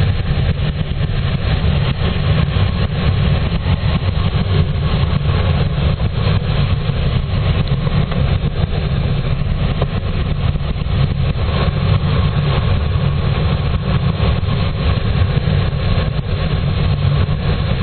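Steady, loud rush of airflow over a glider's canopy heard from inside the cockpit in flight, mostly a low rumble with no engine note.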